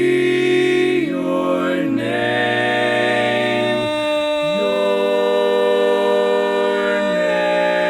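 Barbershop quartet singing a cappella, four men's voices holding long close-harmony chords that shift to a new chord every one to three seconds.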